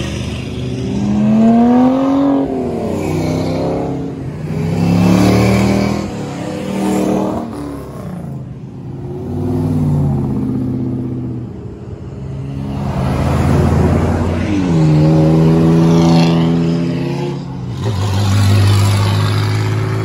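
Several cars' engines accelerating hard one after another as they pull away, each engine note climbing in pitch as the revs rise, with a loud swell as each passes.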